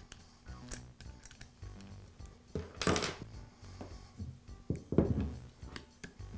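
Small metal clicks and clinks as a nail gun's end cap bracket is fitted by hand and its screw turned with a hex key, with two louder knocks about three and five seconds in. Soft background music underneath.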